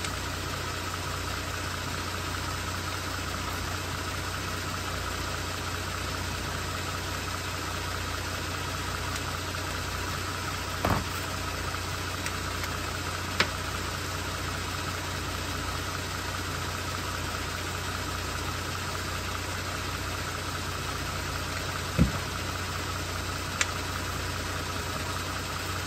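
A 3.6-litre V6 engine idling steadily, keeping the 8-speed automatic transmission running and warming during its fluid fill and level check. A few brief sharp clicks and knocks sound over it, about halfway through and again near the end.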